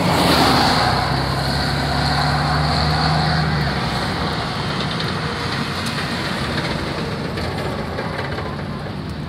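Car driving, engine and road noise, with a steady engine hum through the first four seconds or so that then gives way to plain road noise.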